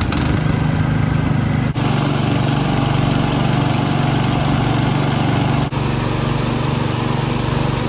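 Two small petrol-engine water pumps running steadily at full speed, with water gushing from their outlets as they pump a rock pool dry. The steady drone dips briefly twice.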